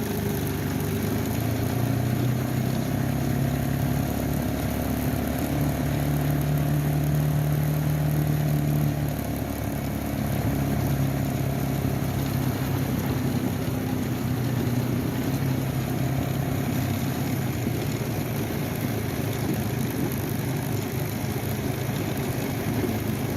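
A steady engine-like motor hum with low pitched tones over a noisy rush, a little louder for a few seconds before dipping slightly about nine seconds in.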